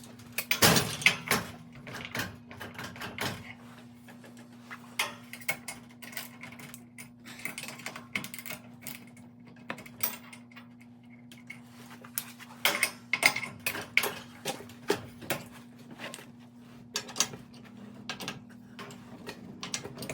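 Garage door torsion spring being wound a full turn with steel winding bars: sharp metal clicks and clanks as the bars are seated in the winding cone and swapped, coming in clusters, over a steady low hum.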